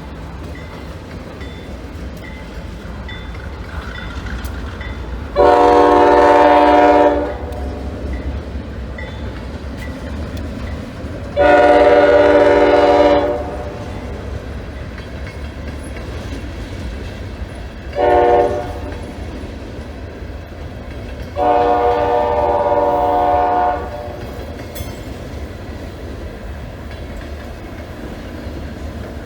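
Diesel locomotive air horn sounding the grade-crossing signal: two long blasts, a short one, then a long one, over a low steady rumble of the approaching train.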